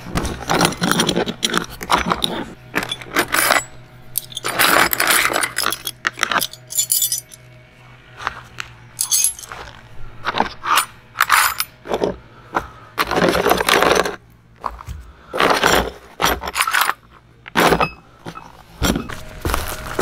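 Metal tent pegs clinking and rattling against each other and the plastic tool box as they are handled, with the box's latch clacking open near the start. Irregular clinks and knocks come one after another, with short pauses between.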